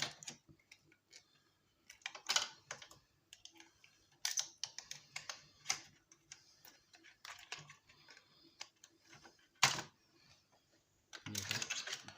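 Irregular clicks and clatter of small plastic and metal electronic parts being handled and pried apart by hand, with one sharp click near ten seconds in and a denser rattle near the end.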